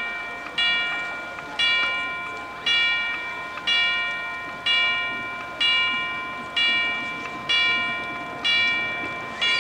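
Chimes struck in a slow, even toll about once a second, about ten strokes, each ringing and fading into the next.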